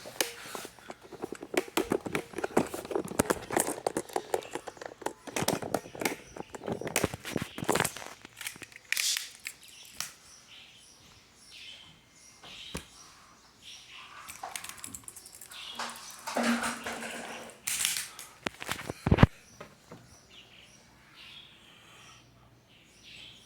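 A mobile phone vibrating and rattling against a surface: rapid buzzing clicks, dense for the first eight seconds, then in irregular bursts, with one sharp knock a few seconds from the end.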